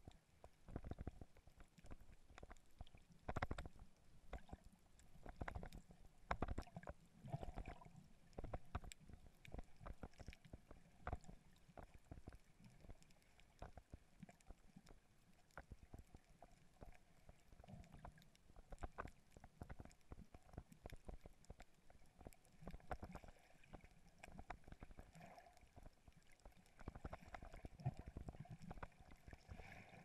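Faint, muffled underwater sound picked up by a GoPro camera below the surface: scattered irregular clicks and low rumbles of water moving around the camera.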